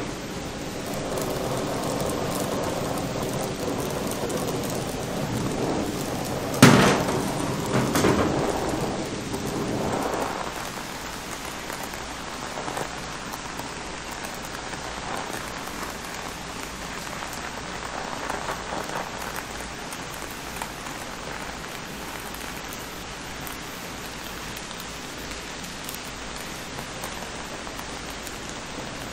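Gas torch flame burning with a steady hissing rush while it heats a lead-soldered roof seam to melt the lead out. A sharp pop about seven seconds in; the sound is louder for the first ten seconds, then settles to an even hiss.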